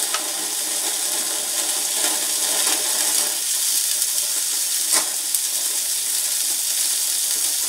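Meat sizzling on the hot grate of a small gas-fired grill, a steady hissing crackle, with a light tap about five seconds in as the pieces are turned.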